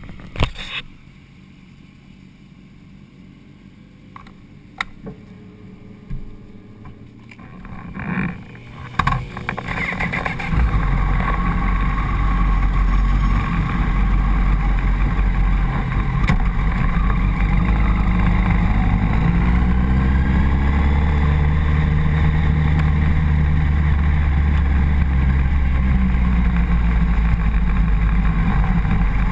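A few sharp knocks from handling a tank-mounted camera, then, about ten seconds in, a Honda CBR1000RR's inline-four engine and wind noise become loud and steady. Near twenty seconds the engine revs rise as the bike accelerates onto the track.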